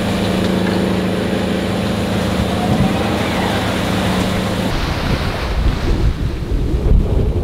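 Waves rushing past a sailing yacht in rough seas, with a steady mechanical hum for the first few seconds. About two-thirds of the way in this cuts sharply to gusting wind buffeting the microphone over the sea.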